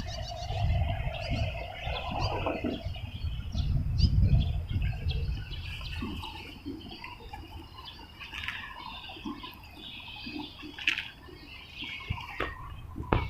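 Small birds chirping and twittering, with a low rumble during the first few seconds.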